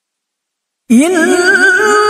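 Nearly a second of dead silence, then a woman's voice comes in with melodic Quran recitation in the tilawah style. The voice starts low, rises and wavers through an ornamented turn, then settles into one long held note.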